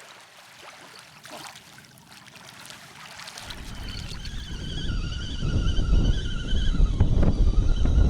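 Wind buffeting the microphone: a low rumble that sets in about halfway through and grows stronger in gusts. A thin wavering whistle runs above it.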